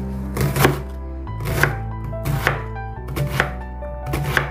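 Chef's knife dicing a raw onion on a wooden cutting board. The blade knocks on the board in steady, unhurried strokes, roughly one or two a second.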